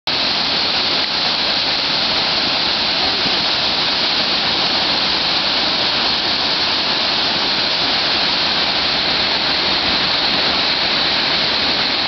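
Loud, steady rush of a large waterfall pouring heavy white water into its pool.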